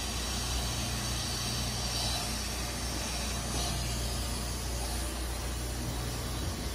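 Automatic car wash running: a steady hiss of water spray over a low, even hum of pumps and motors, heard through the glass of the viewing window.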